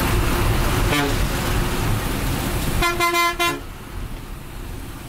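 Ashok Leyland bus running along the road with a steady engine and road rumble, heard from on board. A vehicle horn gives a short toot about a second in, then a louder blast of about half a second near three seconds in, after which the rumble gets quieter.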